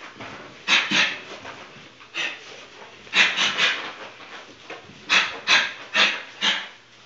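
A man's sharp, hissing breaths forced out with his punches while shadowboxing, coming in quick clusters of two to four.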